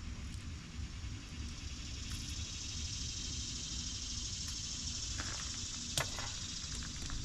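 A few sharp clicks and knocks from handling dismantled appliance parts, the loudest about six seconds in, over a steady high hiss and low rumble.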